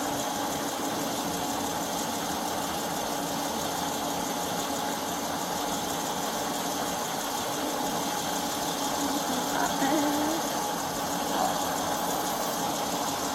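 Steady running hum of an idling vehicle engine, with faint voices in the background.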